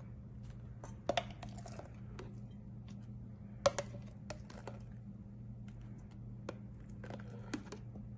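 Plastic mayonnaise squeeze bottle being squeezed over a stainless steel mixing bowl: scattered small clicks and crackles, with a sharper pair about a second in and the loudest knock just before the middle, over a steady low hum.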